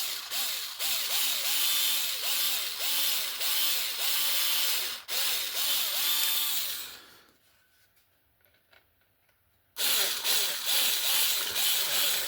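Small power drill with a 2 mm bit run in short squeezes of the trigger, its whine rising and falling about twice a second as it clears pre-drilled holes in a model wagon body. It stops for a couple of seconds past the middle, then starts again.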